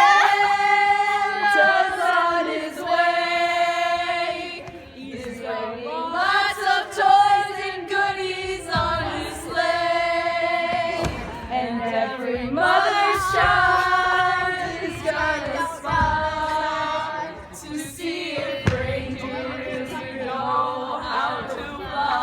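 A group of voices, children and adults, singing a Christmas song together without accompaniment, in long held notes.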